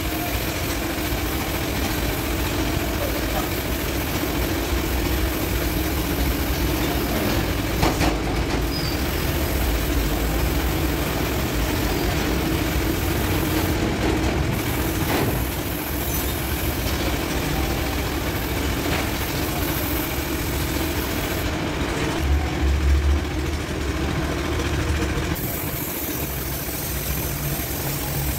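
Steady hiss of compressed air through a gravity-feed paint spray gun. It cuts out briefly about 14 s in and for a few seconds just past the 21-second mark as the trigger is let go. A steady low machine hum runs underneath.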